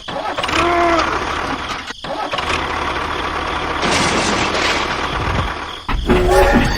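Engine running noisily, dropping out briefly about two seconds in, with short voice-like sounds just under a second in and near the end.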